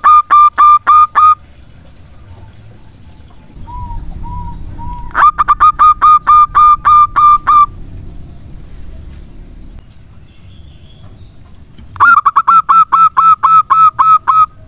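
Zebra dove (perkutut) singing its cooing song: three loud bouts of rapid staccato notes, about six a second, each lasting two seconds or so. Three softer short coos come in between, about four seconds in.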